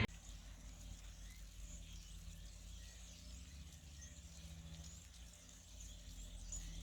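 Faint, scattered chirping of small birds over a low steady hum.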